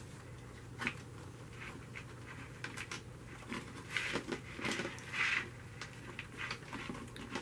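Thin craft wire being threaded through the holes of a plastic basket by hand: faint, irregular scratches, rustles and light clicks.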